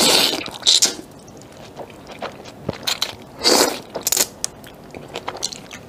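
A person slurping wide, flat biangbiang noodles in noisy bursts, one right at the start and one about three and a half seconds in, with wet chewing and mouth clicks in between.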